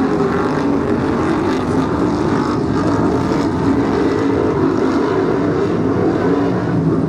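Several BriSCA F1 stock cars' V8 engines running hard together at racing speed, a steady, loud blend of engine noise with no break.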